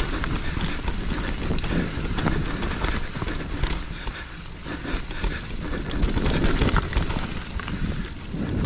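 Mountain bike rolling fast down a dirt trail: a steady rumble of tyres over the ground and wind buffeting the camera's microphone, with scattered sharp clicks and rattles from the bike throughout.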